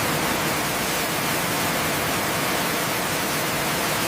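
Pressure washer spraying: a steady, even hiss that starts suddenly.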